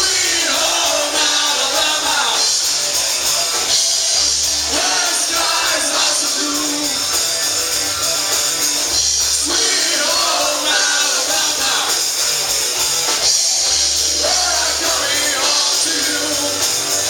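Live music with a singer at a show, loud and continuous, recorded through a compact camera's built-in microphone.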